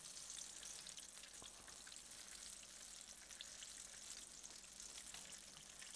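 Apple fritters frying in shallow oil in a skillet: a faint, steady sizzle with scattered small crackles.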